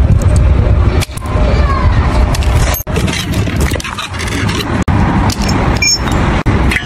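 Steel wire cutters snipping through thick iron wire: a few sharp metallic snaps and clinks, over a steady low rumble.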